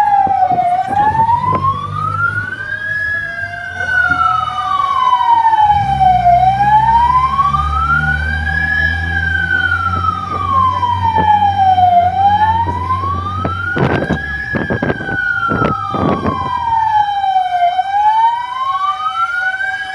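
Emergency-response vehicle siren in a slow wail, sweeping smoothly up and down about every six seconds, with a steady lower tone beneath it and the rumble of the vehicle's engine. A few sharp knocks come about two-thirds of the way through.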